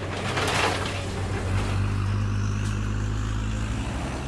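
Heavy machine running steadily, a low engine hum under a broad mechanical rush, which swells briefly about half a second in.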